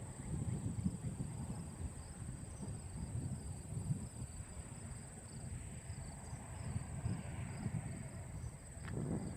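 Evening insect chorus of crickets and other insects: one keeps up a steady high continuous trill while another pulses rhythmically a little lower, over an irregular low rumble.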